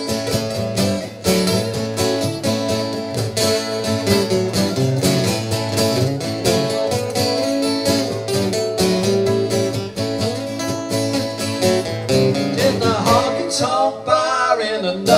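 Two acoustic guitars strumming chords in a steady country rhythm through an instrumental break, played live. Near the end a voice comes in over the guitars.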